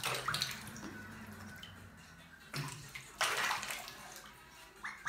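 Bathwater splashing and sloshing as a pet duck swims and dips in a filled bathtub, in a few bursts, the longest a little past halfway.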